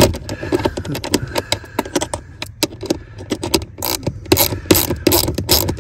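Hand ratchet with an 8 mm socket clicking in quick irregular runs of sharp ticks as it is swung back and forth to back out a screw.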